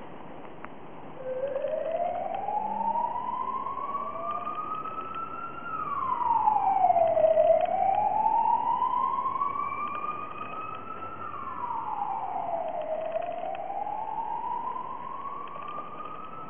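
A siren wailing: its pitch climbs slowly over several seconds and then drops quickly, twice, and is climbing again near the end.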